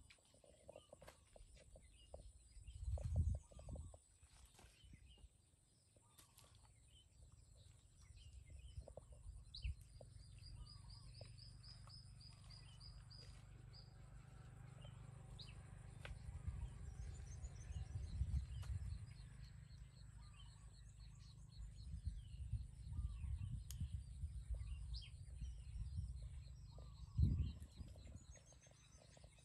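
Outdoor birdsong: small birds chirping and trilling repeatedly over a steady low rumble. Two louder low thumps come about three seconds in and again near the end.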